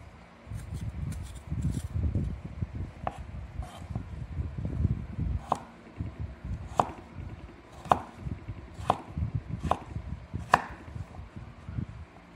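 Knife cutting cooking melon on a wooden chopping board: dull, low cutting and rubbing sounds at first, then from about halfway sharp knocks of the blade on the board, about once a second, six times.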